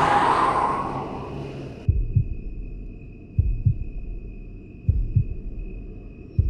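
Heartbeat sound effect: slow double thumps, four of them about a second and a half apart, over a thin steady high ringing tone. They start about two seconds in, as the noise of a crash fades out.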